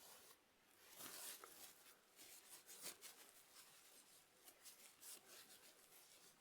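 Faint, quick scratching strokes of a paintbrush on canvas as small wave marks are painted in.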